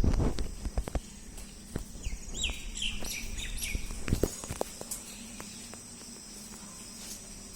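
A bird chirping a short run of quick, falling notes, over a faint steady high tone. Sharp knocks or thumps come near the start and once more about four seconds in.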